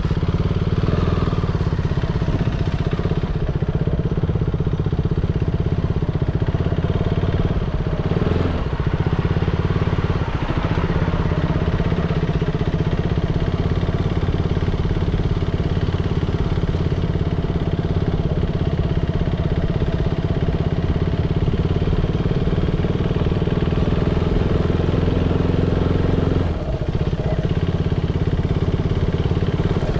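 A motor vehicle's engine running steadily at an even pitch, its note easing briefly about 26 seconds in.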